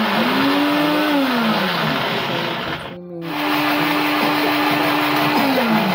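Electric countertop blender running, chopping pumpkin leaves with a little water into a green purée; the motor's whine wavers in pitch as the load shifts. It cuts off abruptly about three seconds in and starts again a moment later.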